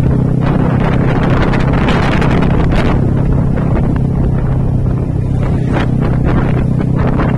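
Motorcycle engine running with a steady hum at an even cruising speed, under gusty wind noise on the microphone.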